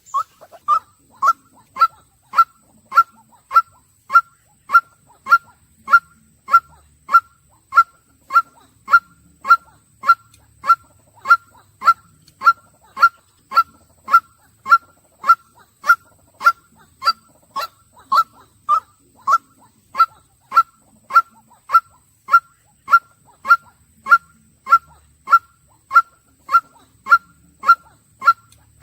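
White-breasted waterhen calling one short note over and over in a steady, unbroken rhythm, nearly two a second, each note dipping slightly in pitch.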